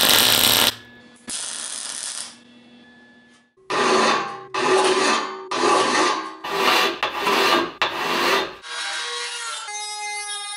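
A flat hand file scrapes the edge of a sheet-steel toy conveyor frame in about six long strokes, after a brief loud burst of welding at the start. Near the end a Dremel rotary tool with a grinding stone runs with a high whine that rises in pitch as it speeds up.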